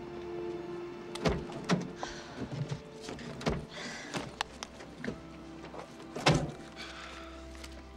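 Car door and interior knocking and thunking as someone climbs in and rummages, with soft rustling between; the loudest knock comes about six seconds in. Quiet music with held notes plays underneath.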